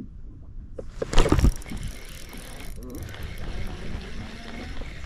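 Spinning reel being cranked to reel in a hooked fish, its gears whirring and ticking steadily, with a loud knock about a second in.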